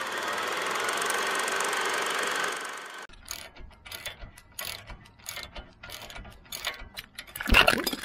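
A rising whooshing swell of a title sound effect that cuts off suddenly about three seconds in, then a socket ratchet wrench clicking in short irregular runs as it works a bolt on the truck's front suspension. A sudden loud noise comes near the end.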